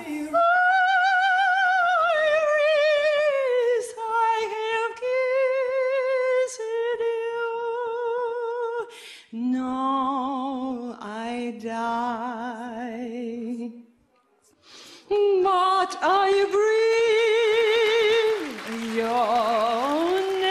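Woman opera singer singing a cappella: long held notes with wide vibrato, the line dropping lower in the middle, with a short break about fourteen seconds in.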